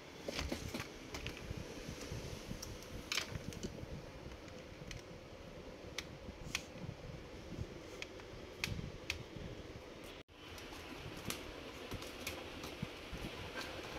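Scattered sharp clicks and taps of a screwdriver and plastic laptop case parts being handled and taken apart, over a steady low hum, with a momentary break about two-thirds through.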